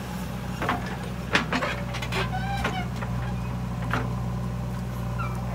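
JCB 3DX backhoe loader's diesel engine running steadily while the bucket works, with several sharp knocks and clanks as the steel bucket digs into the soil. Short chirping calls sound a little over two seconds in.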